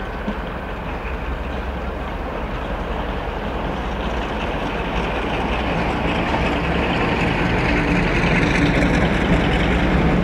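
Heritage diesel locomotive with its engine running, growing steadily louder as it approaches.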